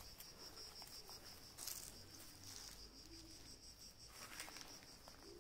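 Faint, steady chirping of an insect, a high-pitched trill pulsed evenly several times a second. Soft rustles come about one and a half seconds in and again just after four seconds.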